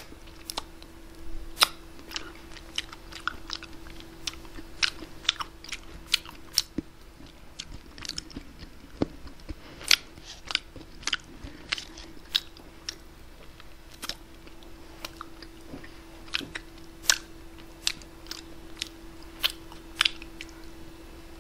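Close-miked mouth sounds of a person eating ice cream: irregular sharp smacks and clicks, roughly one or two a second, as she takes spoonfuls from the cup with a small plastic spoon. A faint steady hum runs underneath.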